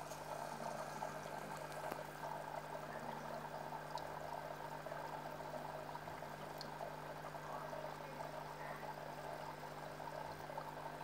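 Aquarium water bubbling and splashing steadily from rising air bubbles and a filter, with a steady low hum underneath.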